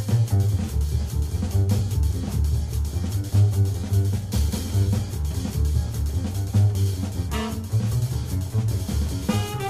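Jazz band music with a loud, repeating low bass line under the ensemble.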